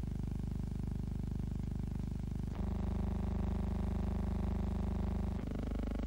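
Steady electrical hum with a buzzy stack of overtones, the background noise of a transfer of a silent film. It shifts abruptly, louder about two and a half seconds in and softer again near five and a half seconds.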